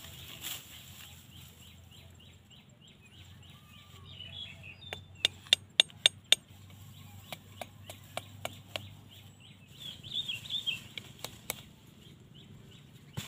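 Machete blade striking bamboo sticks while a ground snare is built: about five seconds in, a quick run of five sharp knocks, then lighter scattered taps. Birds chirp faintly in the background.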